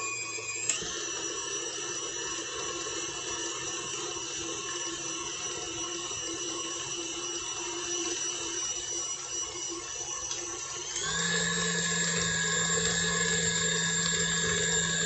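Stand mixer motor running with the paddle attachment mixing cookie dough, a steady whine that steps up to a higher pitch about eleven seconds in as the speed increases.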